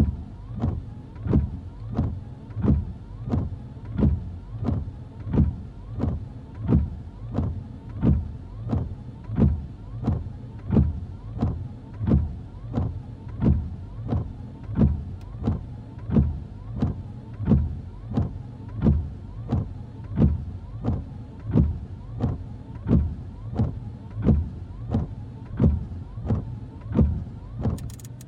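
Car windshield wipers running continuously: the wiper motor hums while the blades sweep back and forth in an even rhythm, about three passes every two seconds. A sharp click comes near the end.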